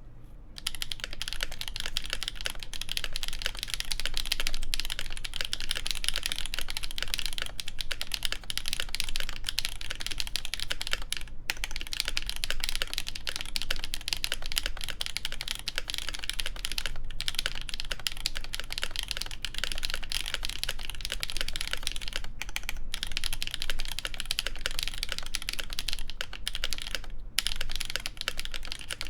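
Continuous fast typing on an ASUS ROG Azoth mechanical keyboard with Krytox-lubed Gateron Duck switches and GMK keycaps on a stainless steel plate: a dense stream of key clacks that starts about half a second in and has a few brief pauses.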